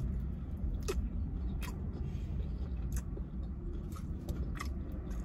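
Close-up chewing of crispy tempura shrimp, with a few scattered crunches over a steady low hum.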